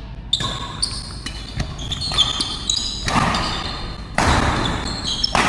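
Badminton play on an indoor court: a series of sharp racket hits and thuds, about six over the few seconds, with short high squeaks that fit court shoes, echoing in the hall.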